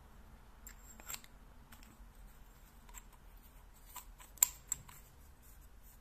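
Aluminium flashlight body tube being screwed onto the head of a Convoy M26C: light scraping of the metal threads and small clicks, with two sharp clicks close together a little past the middle.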